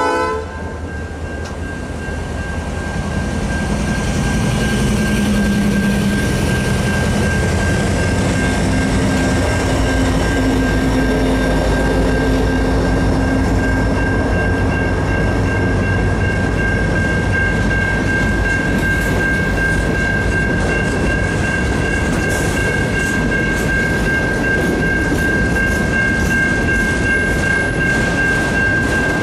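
Freight cars (autoracks and loaded gondolas) rolling past at speed: a steady loud rumble with wheel clatter, and a steady high-pitched tone ringing over it. The locomotive horn cuts off right at the start.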